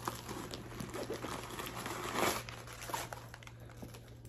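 Clear plastic wrapping on a new handbag crinkling as it is handled, in irregular crackles that are loudest a little past the middle.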